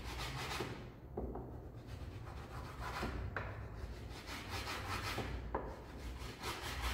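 Raw edge of an MDF offcut block rubbed back and forth along the edge banding of a black MDF panel: a dry scraping in repeated strokes, with a few light knocks. The block is smoothing off the sharp leftover edge of the freshly trimmed banding tape.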